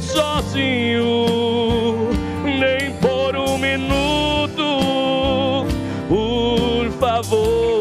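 Live gospel worship song: a man singing long, held notes with vibrato over keyboard and bass accompaniment.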